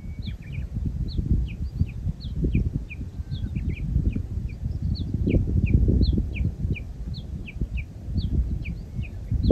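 Small birds calling outdoors: many short, downward-sweeping chirps, several a second, over a gusty low rumble of wind buffeting the microphone.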